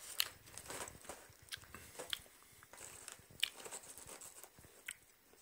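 Irregular crackles and crunches of popped microwave popcorn being eaten and rummaged from its paper microwave bag, the paper rustling as a hand digs in.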